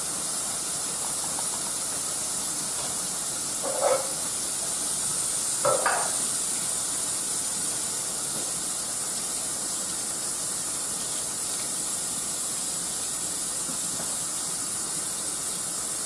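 Hot skillet of tomatoes and vegetables sizzling on the stove: a steady hiss, with two short louder sounds about four and six seconds in.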